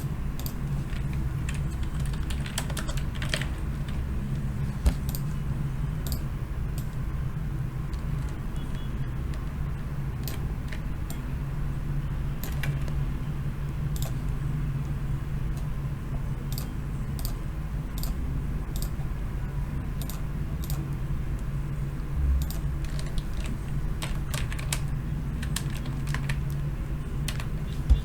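Typing on a computer keyboard: scattered key clicks in irregular clusters, over a steady low hum.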